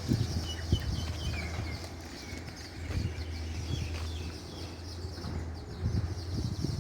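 Javan mynas calling: scattered short chirps and squeaky whistled notes, over a steady high hiss and a few low thumps.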